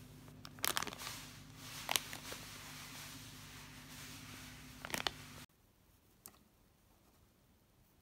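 Crisp plastic crinkling and crackling as a tea package in a clear cellophane bag is handled, with a few sharp crackles over a low steady hum. About five and a half seconds in, it cuts to a much quieter room tone with one faint click.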